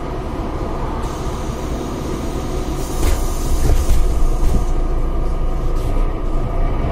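Steady low rumble of an 18-metre MAN Lion's City NG313 articulated bus's diesel engine and Voith automatic driveline, heard from inside the passenger cabin. It grows louder about three seconds in, with a brief hiss at that point.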